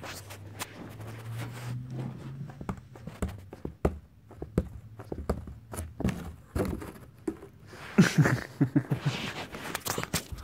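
Cardboard box being knocked about and shaken over a carpeted floor: irregular thuds and scuffs, with a quick run of knocks about eight seconds in.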